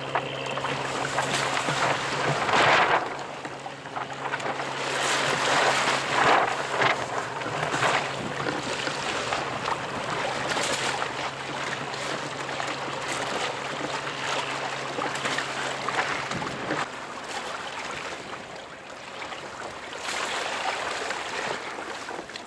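Sea water rushing and slapping along the hull of an inflatable kayak under way in choppy water, with gusts of wind on the microphone in louder surges. A steady low hum runs underneath and stops about two-thirds of the way through.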